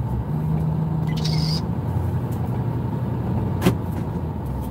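Steady engine and road rumble heard inside a vehicle's cabin, with a single sharp click a little over three and a half seconds in.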